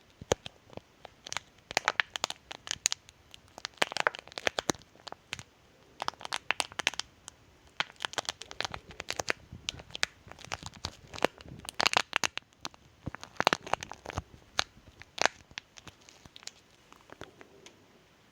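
Plastic candy wrapper being crinkled, torn and peeled open by hand, close to the microphone: a run of irregular sharp crackles and tearing sounds.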